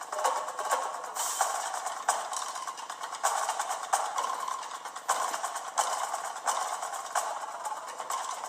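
Film end-credits music with a busy, steady percussion beat. The sound is thin, with no deep bass.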